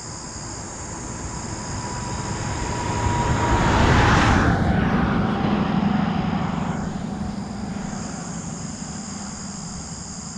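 A car passing on the highway: the tyre and engine noise builds, peaks about four seconds in with a drop in pitch as it goes by, then fades away. Crickets chirp steadily underneath.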